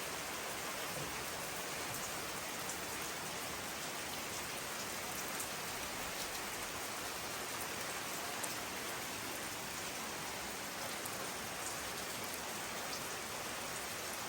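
Steady hiss of water, with scattered light ticks in it.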